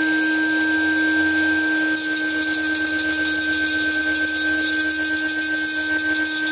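High-speed rotary handpiece with a small burr grinding into a steel Glock 26 barrel: a steady motor whine with a fine grinding hiss as the burr removes the background metal around engraved scrollwork, leaving a stippled, jeweled texture.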